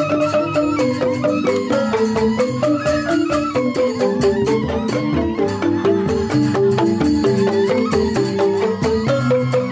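Balinese joged bumbung gamelan playing: bamboo xylophones (grantang) struck with mallets in quick, dense runs of notes that step up and down, with a steady pulse and no break.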